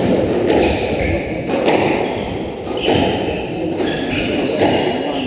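Squash rally: the ball cracks off rackets and thuds against the court walls in a quick run of sharp impacts, about two a second.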